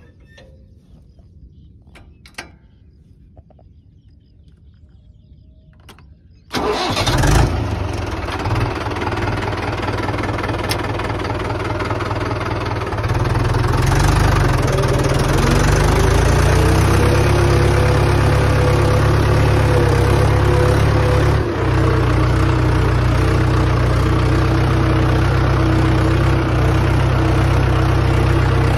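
Mahindra 415 DI XP Plus tractor's diesel engine: a few clicks, then the engine starts about six seconds in and settles into a steady run. About thirteen seconds in it gets louder and runs on steadily as the tractor moves off across the sand.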